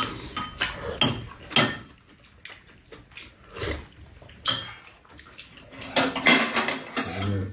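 Metal spoons clinking and scraping against bowls and a metal serving tray during a meal, in a scatter of sharp clicks, with eating sounds between.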